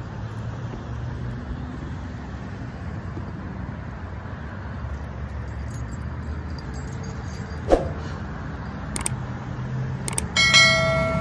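Steady low rumble of distant road traffic, with a sharp click about three-quarters of the way in and a brief steady pitched tone near the end.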